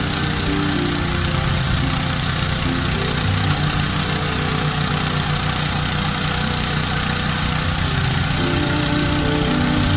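Honda GX160 single-cylinder four-stroke engine of a Tasco BK 55H mini tiller running steadily.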